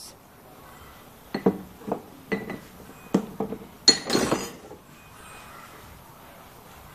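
A metal spoon clinking against a stainless steel cooking pot: several light, separate clinks with a short ring, then a louder clatter of metal on metal about four seconds in.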